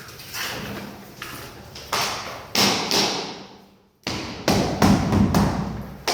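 A series of sharp thuds and taps on a hard surface, coming every half second or so, with an abrupt break about two-thirds of the way through.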